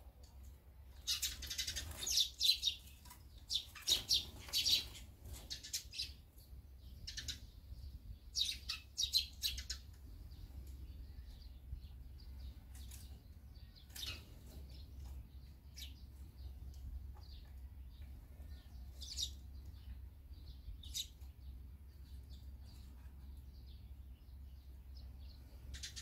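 Eurasian tree sparrows chirping in quick, busy clusters at a seed feeder for the first ten seconds or so, then only a few scattered single chirps.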